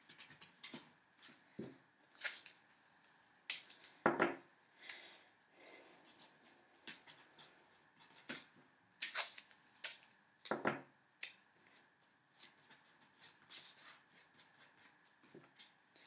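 Card mask pieces being handled and joined with masking tape: irregular rustling and crinkling of card with scattered short, sharp rips and clicks of tape.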